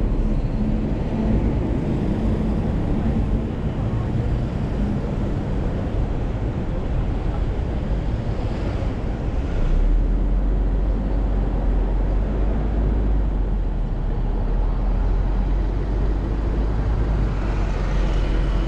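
Street traffic at a city intersection: a city bus and cars moving through, with steady engine hum and tyre noise. A low rumble grows stronger about halfway through.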